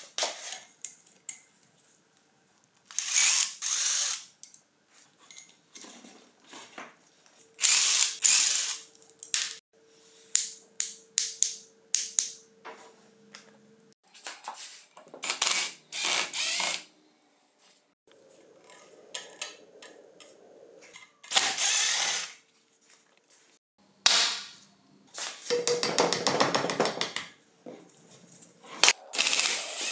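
Repeated short runs of a power driver, each a second or two long, with clicks and knocks of metal parts being handled in between, as an old chisel mortiser is taken apart.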